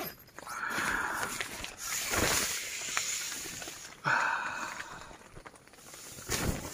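Nylon tent fabric rustling and swishing in irregular bursts as it is handled and brushed against, with a soft thump near the end.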